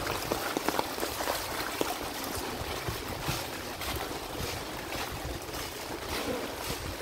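Rain falling and floodwater running: a steady hiss full of small drips and splashes.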